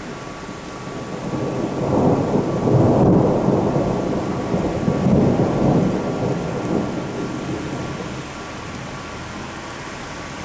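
A long roll of thunder that builds, swells twice and slowly dies away, over steady rain.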